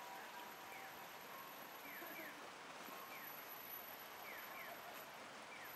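Electronic bird-chirp guidance sound of the kind Japanese stations play to lead blind passengers to stairs: short falling chirps repeating about once a second, alternating single and double, over the steady murmur of a busy station concourse.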